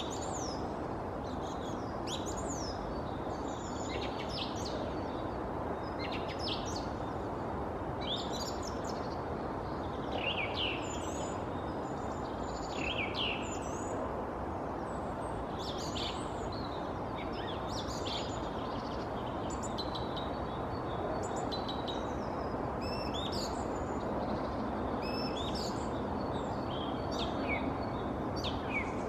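Song thrush singing: short, sharp, varied phrases every second or two, heard over a steady background noise.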